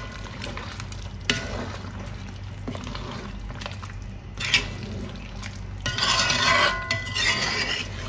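A spoon stirring in a pot of simmering chicken, with scattered clinks against the pot and a louder stretch of stirring about six seconds in.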